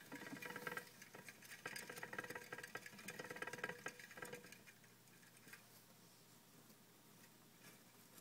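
Plastic saucer exercise wheel spinning under a running teddy bear hamster: a fast rattling whir with the patter of its feet, stopping about four and a half seconds in, after which only a few faint ticks remain.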